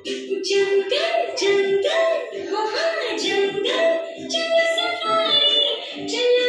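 Background music: a song with a singing voice over a steady beat, about two beats a second.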